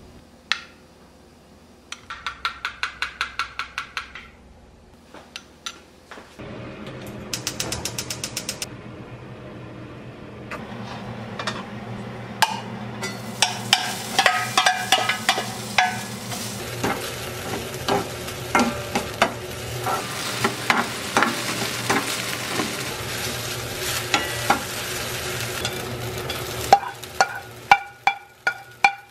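A spoon stirring thick chili sauce in a small glass bowl, clicking quickly against the glass. Then oil sizzling in a frying pan as sliced green onions are stir-fried, with a spatula tapping and scraping the pan, and bean sprouts tipped in near the end.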